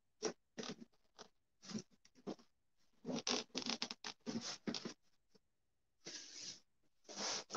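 Rustling and scraping of a folding bathtub's thin, shower-curtain-like fabric cover and its frame rods as they are handled and fitted together. It comes in irregular short bursts, busiest a few seconds in.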